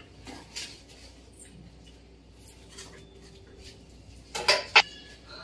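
Scissors cutting open the packing tape on a cardboard box: faint scratching and snipping, then a few sharp, loud cracks of tape and cardboard about four and a half seconds in.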